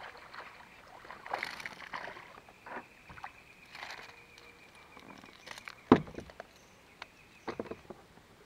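A small hooked fish, a young peacock bass (tucunaré), splashing at the surface as it is reeled in toward a plastic kayak, with a sharp knock about six seconds in.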